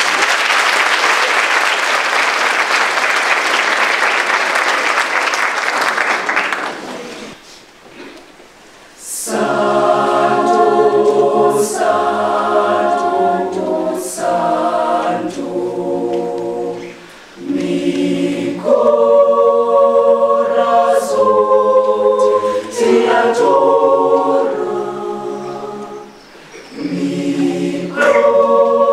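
Audience applauding for about six seconds; after a short pause a mixed school choir starts a new song, singing a cappella in harmony, with chords changing every second or two.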